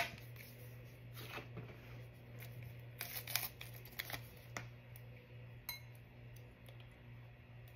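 A small paper-foil alcohol prep pad packet being torn open and crinkled by hand: a sharp click at the start, then a few short bouts of crackling and ripping. A steady low hum runs underneath.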